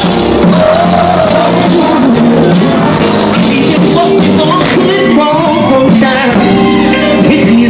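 A live band plays a song while a male singer sings into a microphone, with electric guitar and drums behind him, heard loud from among the audience.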